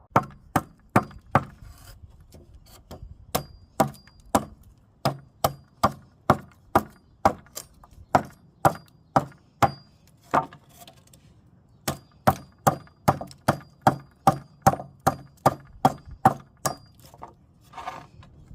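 A short-handled bowl adze chopping into wood in quick, regular one-handed strokes, about two a second, with a brief pause about eleven seconds in. Each blow is a sharp, woody chop.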